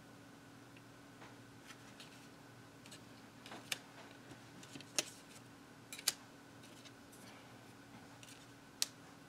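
Paper and cardstock die-cut pieces being sorted and handled on a cutting mat: faint rustling with a few light clicks and taps, about five of them, over a steady low hum.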